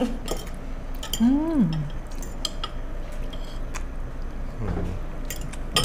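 Metal spoons and forks clinking and scraping against ceramic plates and bowls as diners mix and eat bibimbap, with a few sharp clinks scattered through. A short vocal "ooh" that rises and falls comes about a second and a half in.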